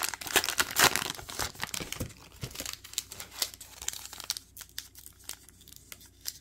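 Wrapper of a Topps Heritage baseball card pack crinkling and tearing as it is pulled open by hand, a run of short crackles that is busiest in the first few seconds and then thins to scattered crackles.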